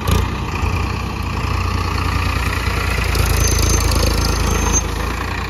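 Diesel tractor engine running steadily with a low rumble.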